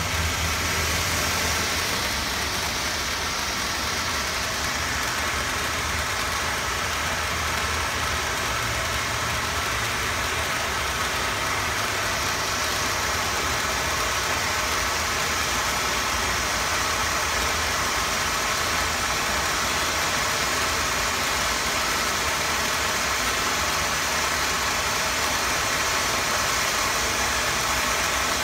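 Volcano fountain firework (Büyük Coşkunlar V-668) burning and spraying sparks: a steady hissing rush with a low rumble underneath, unchanging in level.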